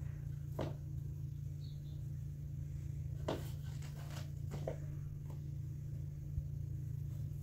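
A steady low hum with a few light knocks and taps scattered through it, from bread-making work over a gas flame.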